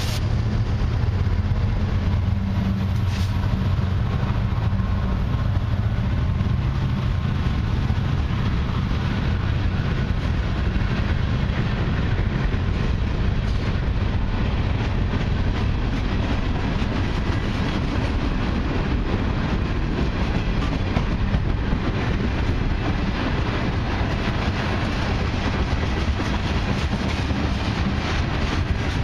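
Long CN mixed freight train passing close by. The last of its diesel locomotives drones low at first, then the freight cars' wheels rumble and clatter steadily over the rails.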